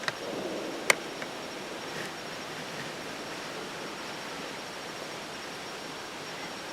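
Steady outdoor background hiss with a few sharp clicks, the loudest about a second in.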